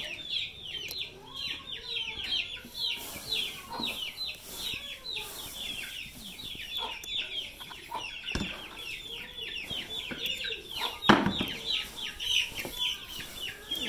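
Many small birds chirping without pause: a dense stream of short, high peeps, each falling in pitch. Two thumps cut through, about eight and eleven seconds in, the second the loudest.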